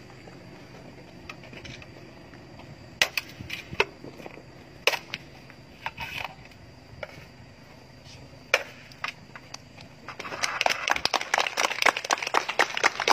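Machete chopping into a bamboo pole: a string of sharp strikes about a second apart, with a longer pause before a last hard one. About ten seconds in, a group of people starts clapping.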